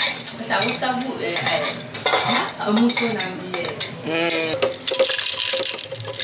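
Metal utensils and cookware clinking and scraping against pots and dishes, many quick clinks in a row.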